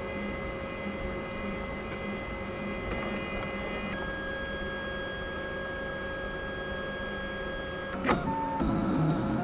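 3D printer running: its stepper motors whine in several steady tones over a fan's hiss, and the tones jump to new pitches about four seconds in as the move changes. A click comes just after eight seconds, and music starts near the end.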